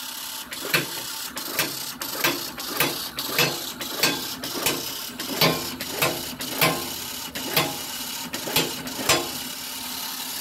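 Agarbatti (incense stick) making machine running in semi-automatic mode: a steady mechanical whir with a sharp clack about twice a second, one per stroke. Its pressure is set too high, so the sticks come out bent and broken.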